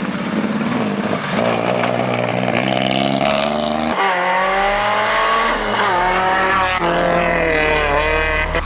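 Rally car engines revving hard on a gravel stage, the pitch climbing and dropping again and again through gear changes as the cars pass. About four seconds in, one car's sound gives way abruptly to another's.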